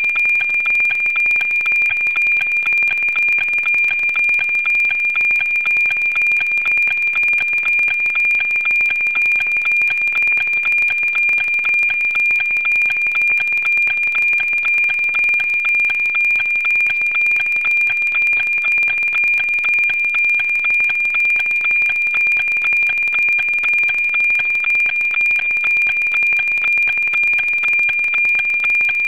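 NOAA-19 weather satellite's APT image signal on 137.1 MHz, demodulated to audio: a steady 2,400 Hz tone with an even tick-tock rhythm of two image lines a second, as the picture is being received and decoded.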